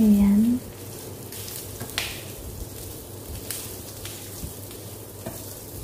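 Pieces of roast pork and garlic sizzling as they fry in hot oil in a pan: a steady hiss, with a few sharp clicks, the clearest about two seconds in.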